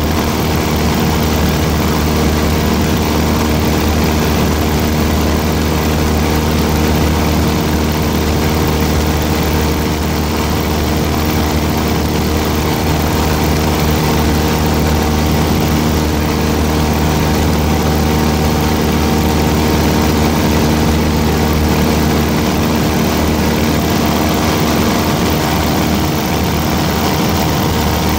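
Aircraft engine droning steadily at one even pitch, heard from on board.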